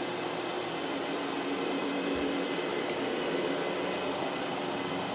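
CRV carpet cleaning machine running steadily as it is pushed over matted carpet, its brush pulling up dog hair, a steady motor hum under the brushing noise. A few light ticks about three seconds in.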